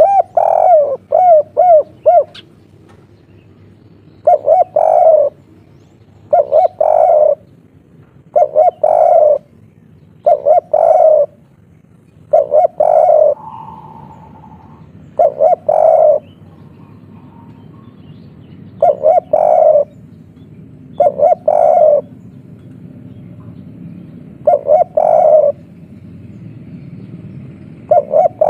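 Spotted dove cooing its three-note 'kuk 3' song, a phrase repeated about every two seconds, beginning with a quick run of short notes.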